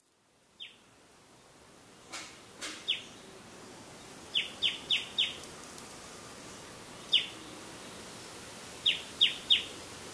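A bird calling with short, sharp chirps that drop quickly in pitch, some single and some in quick runs of three or four, over a steady hiss of background noise.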